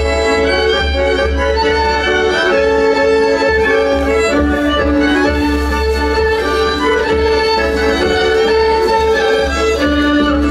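Instrumental folk music led by fiddles, with sustained bowed notes moving from one to the next and a steady low rumble underneath.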